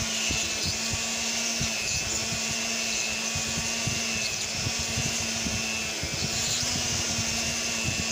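Handheld rotary tool with a bullet-nose diamond bit running at a steady whine while grinding into wet stone, with irregular scratchy grating as the bit is worked in small circles, close to breaking through.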